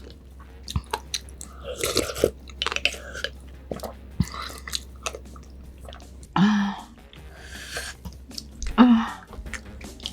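Close-miked chewing and biting of food, with wet mouth clicks throughout. Two short hums stand out about six and a half and nine seconds in.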